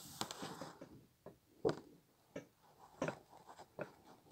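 A few faint, separate clicks and taps, about five in all and the sharpest one about two seconds in, after a brief soft rustle at the start.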